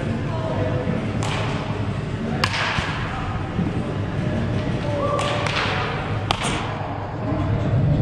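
Batting practice in a cage: a handful of sharp knocks from bat meeting baseball and balls striking the netting, each echoing in the big hall, the two loudest about two and a half seconds and six seconds in.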